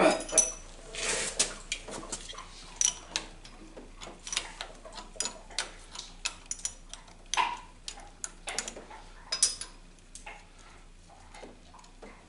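Irregular metallic clicks, taps and scrapes as hands work the nut and coil off the valve solenoid of a Meyer E47 snowplow hydraulic pump. The clicks come thickest in the first several seconds and grow sparser near the end.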